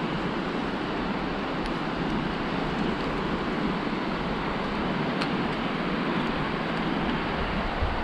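Steady wind buffeting the microphone over the wash of low surf, with a couple of faint ticks.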